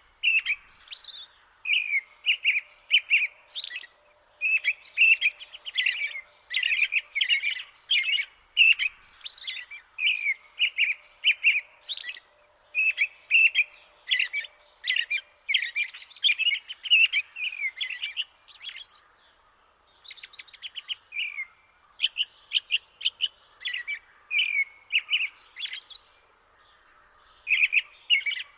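Songbirds singing: quick high-pitched chirping phrases, each about a second long, follow one another with only brief pauses.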